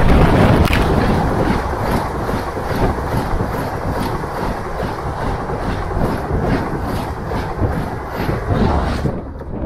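Strizh Talgo 250 express, hauled by an EP20 electric locomotive, passing at speed close to the track. It is loudest as the locomotive's wheels go by, then the coaches roll past with a steady rush and a regular clack of wheels over the rail, about two clicks a second.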